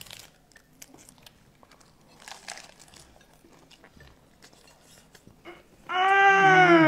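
Faint crunching bites and chewing of lettuce cups. About six seconds in comes a loud, long 'mmmmmmm' hum of enjoyment that falls in pitch.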